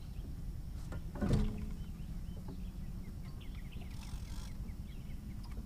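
A fishing rod being pulled from its holder on a boat as a fish is hooked: a single knock with a short ringing hum about a second in, over a steady low rumble.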